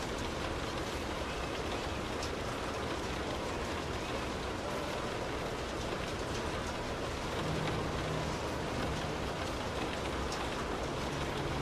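Steady rain pattering on a car's roof and windows, heard from inside the car, with scattered individual drop ticks. A faint low hum comes in about three-quarters of the way through.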